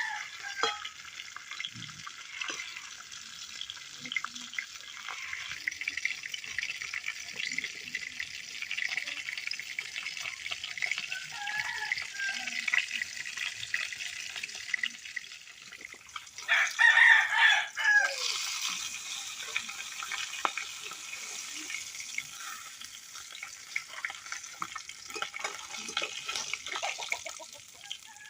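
Fish frying in hot oil, a steady sizzle with crackles, and a rooster crowing once, loudly, about two-thirds of the way in. Shorter, fainter chicken calls come now and then.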